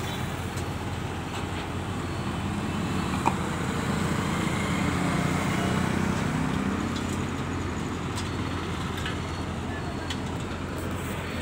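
JCB 30Plus mini excavator's diesel engine running steadily, growing a little louder for a few seconds in the middle. A single short knock sounds about three seconds in.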